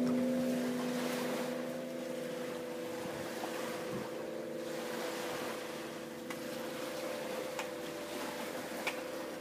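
Wind harp (aeolian harp) strings sounding in the wind: several held tones that overlap and slowly swell and fade, a lower one dying away about a second in. Under them runs the steady rush of wind and water.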